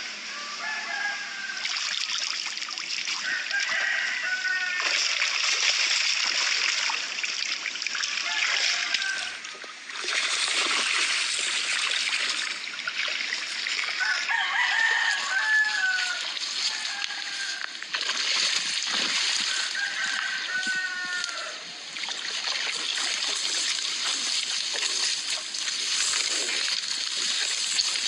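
Several drawn-out bird calls that fall in pitch, spaced seconds apart, over a steady rushing hiss.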